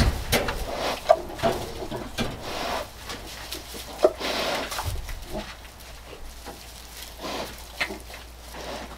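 Farrowing sow and her newborn piglets in a straw pen: short, irregular grunts and squeaks, loudest about a second in and again about four seconds in.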